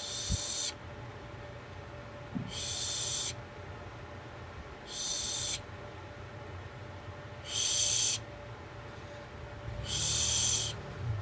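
An owl screeching at night: five harsh, hissing screeches, each under a second, repeated about every two and a half seconds.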